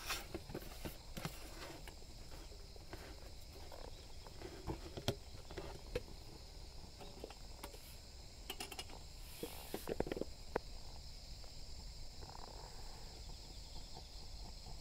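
Scattered light metal clicks and knocks as a mess tin is handled and set onto a steel stove stand over an alcohol burner, busiest around eight to ten seconds in.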